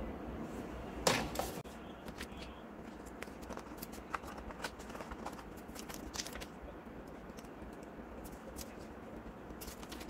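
Thin clear plastic protective film being peeled off a smartphone and crinkled in the hands: a loud crackle about a second in, then scattered small crackles and ticks.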